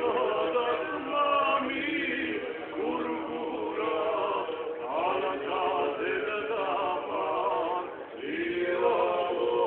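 Several men's voices singing together in harmony, in long gliding phrases, with a short break about eight seconds in before the next phrase begins.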